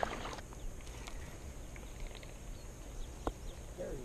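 Quiet outdoor ambience: a steady low rumble, a short rustle of noise that stops about half a second in, and a few faint clicks, the clearest about three seconds in.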